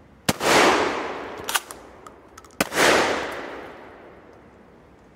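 Two shotgun shots about two seconds apart, each ending in a long, fading echo, with a shorter sharp crack between them.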